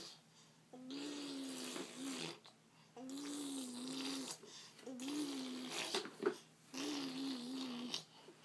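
A young child making car sounds with the voice: four drawn-out buzzing engine noises, each about a second long, at a fairly steady pitch with slight rises and falls, separated by short pauses.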